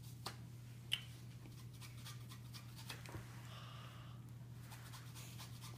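Faint handling sounds, light rubbing and a few small clicks, over a steady low hum.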